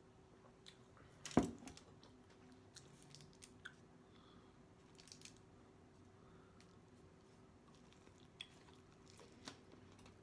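A glass soda bottle set down on the table with a single knock about a second and a half in, followed by quiet chewing and the soft crackle of a taco being pulled apart in the hands.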